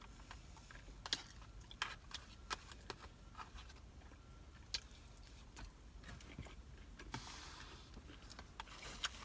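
Quiet eating sounds: a few sharp clicks and taps spaced a second or more apart, with a brief rustle about seven seconds in.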